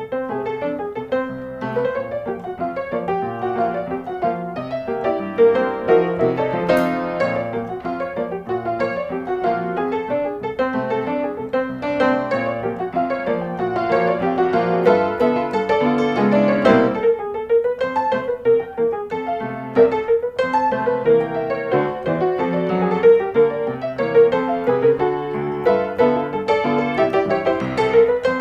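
Background music led by piano, with a melody running over a steady chordal accompaniment.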